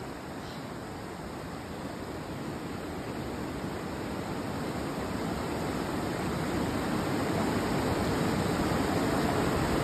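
Rushing white water of a rocky mountain stream, a steady roar that grows gradually louder.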